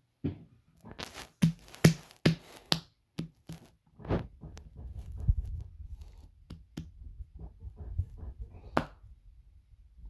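Stomach growling and sloshing: a quick run of wet pops and gurgles, then from about four seconds in a low rumble with scattered pops, one sharp pop near the end.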